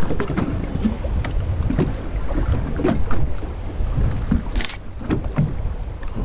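Wind buffeting the microphone over the uneven rush and slap of water against a moving boat's hull at sea, with a brief sharp hiss of spray about four and a half seconds in.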